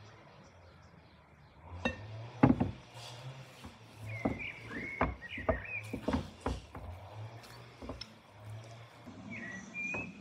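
A hand squeezing and kneading soft, sticky dough in a glass bowl: a run of irregular squelches and knocks, the loudest about two and a half seconds in.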